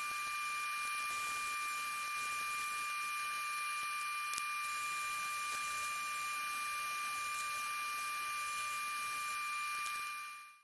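Wood lathe running: a steady hiss with a steady high-pitched whine, fading out near the end.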